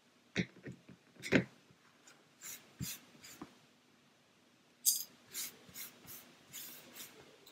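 Small hand tools and plastic model-kit parts set down and handled on a cutting mat, with a few sharp taps, the loudest just over a second in, then a run of short scraping strokes, about two a second, over the last few seconds.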